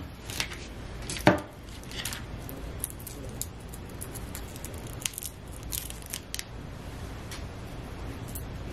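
Smashed garlic cloves being peeled by hand: faint, scattered papery crackles and tears of the dry skins, with one sharper knock about a second in.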